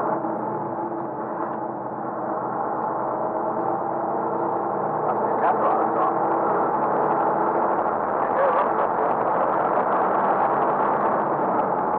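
Old truck's engine running steadily, a continuous drone with several steady tones.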